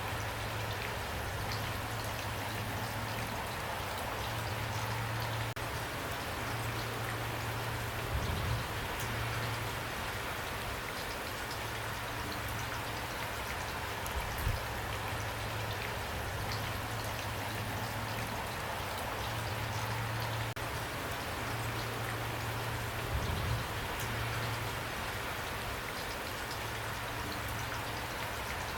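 Steady rain with individual drops pattering, over a constant low hum. A few soft low thumps stand out, about 8, 14 and 23 seconds in.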